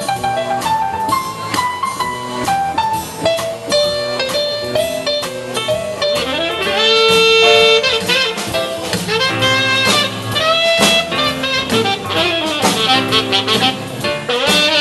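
Live saxophone solo over a drum kit and band, a bluesy melodic line with one long held note about halfway through.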